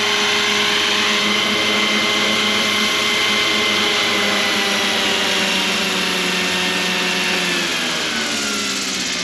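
Scale 600-size Hughes MD500 RC helicopter hovering low and settling in to land: a steady motor and gear whine with rotor hum, which slides gradually down in pitch over the second half as the head speed drops.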